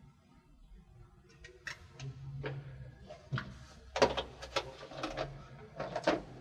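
Small objects being handled: a run of separate sharp clicks and knocks, most of them packed together in the second half.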